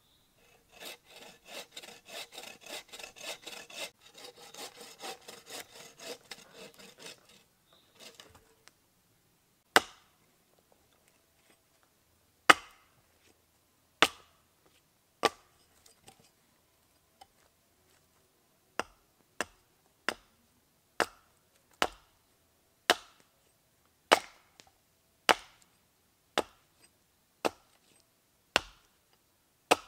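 A hand saw cutting through wood with quick, even strokes for about seven seconds. Then a hatchet chops a split log section held upright on a chopping block, shaping a wooden spoon blank: a run of sharp single strikes, a second or two apart at first, then about one a second.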